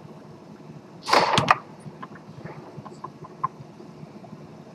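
Tornado foosball table in play: a loud clatter lasting about half a second, about a second in, with sharp knocks of ball, men and rods in it, then a few light scattered clicks.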